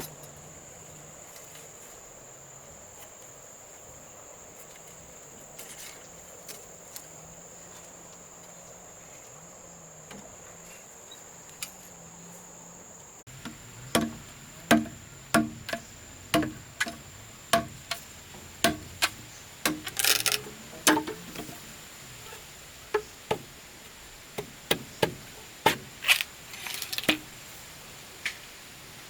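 Insects chirring in a steady high drone. About halfway in, the sound cuts to a run of sharp, loud knocks with a short ring, roughly one to two a second.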